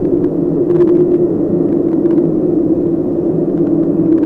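Steady, loud, dark ambient drone with a low rumble, with faint scattered clicks and crackles over it.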